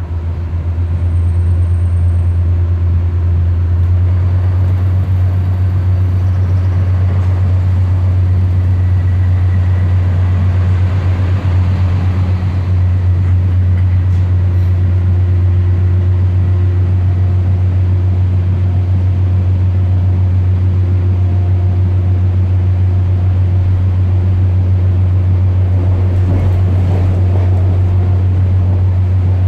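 Class 142 Pacer diesel railbus heard from inside its passenger saloon while under way: the underfloor diesel engine and running gear make a loud, steady low drone.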